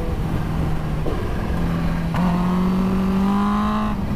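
Motorcycle engine running at steady revs, its pitch stepping up about two seconds in and climbing gently as the bike accelerates, over wind rush.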